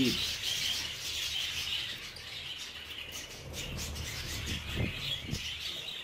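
Budgerigars chirping and chattering in a steady high twitter, with a couple of soft taps near the end.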